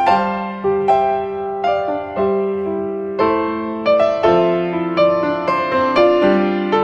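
Background piano music: a slow, gentle melody of struck notes, about two a second, each ringing out and fading.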